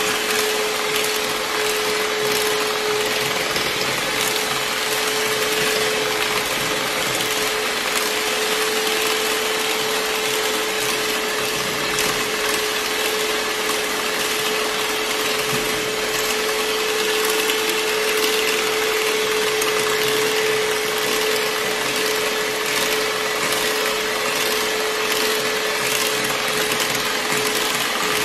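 Electric hand mixer running steadily, its twin wire beaters whipping a cream-and-cookie ice cream base in a glass bowl to aerate it. A steady motor whine over an even whirring rush.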